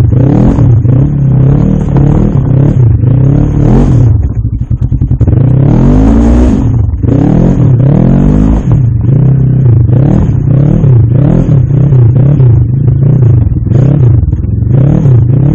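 Polaris RZR side-by-side engine running loud under throttle, revving up and down again and again as it works over rough trail, easing off briefly a few seconds in.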